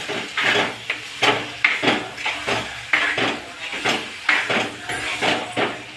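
A spoon scraping and knocking against a cooking pan, about two strokes a second, as chicken pieces are stirred into onion-tomato masala.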